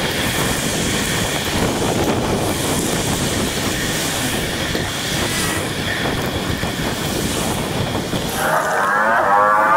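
Continuous rushing road and traffic noise picked up by a camera on a bicycle riding wet streets, sped up for a timelapse, with a faint steady whine above it. Near the end, a short burst of high, fast-wavering sound.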